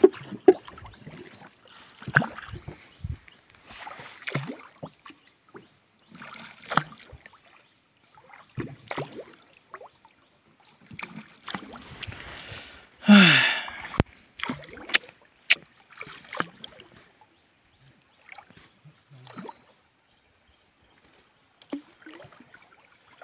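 Wooden paddles dipping and pulling through the water of a small canoe, one stroke about every two seconds with splashing and dripping between quiet gaps. About halfway through there is a loud, short cry that falls in pitch.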